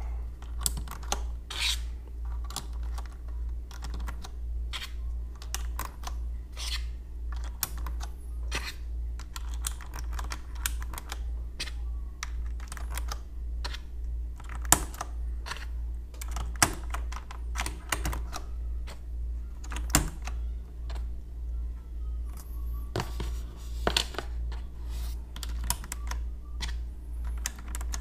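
Plastic keycaps being pressed back onto a Das Keyboard's Cherry MX Red switches: irregular clicks and clacks, a few of them louder, over a steady low hum.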